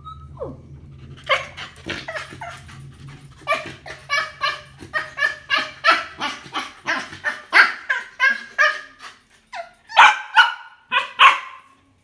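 A small dog barking over and over, about two barks a second, loudest near the end.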